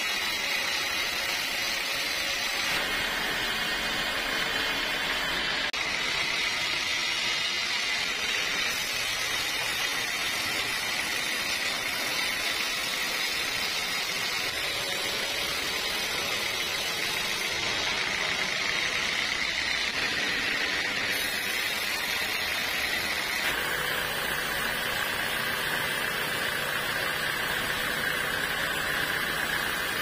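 Band sawmill cutting a teak log: the blade running through the wood over the saw's motor, a steady loud sawing noise whose tone shifts abruptly several times.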